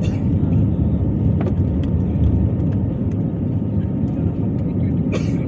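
Jet airliner cabin noise during the climb after takeoff: the engines and the air rushing past make a loud, steady low noise, heard from a window seat. A short sharp noise cuts through about five seconds in.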